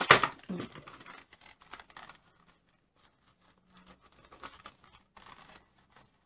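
Toy packaging being handled and opened: a loud crinkling tear at the start, then lighter scattered crinkles and taps.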